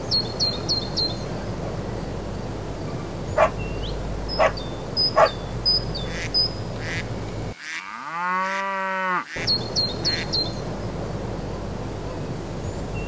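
Rural outdoor ambience of small birds chirping in quick runs, with a few sharper calls, over a steady hiss. About eight seconds in, a goat bleats once for nearly two seconds.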